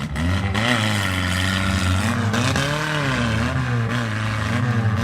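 Demolition derby mini truck engine revving up and down under load, with its transmission whining loudly: the transmission is "yelling".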